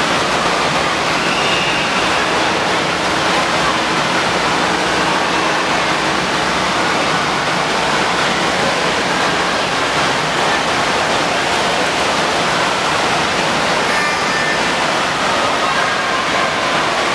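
Steady rush of water in an indoor water park's lazy river, with faint children's voices in the din now and then.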